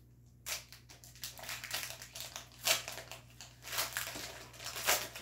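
Foil wrapper of a trading-card booster pack being torn open and crumpled by hand: irregular crinkling and crackling starting about half a second in, with two louder crackles near the middle and near the end.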